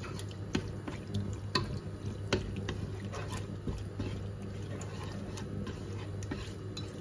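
Chopsticks stirring raw minced beef in a pot, giving irregular light clicks and taps against the pot over a steady low hum.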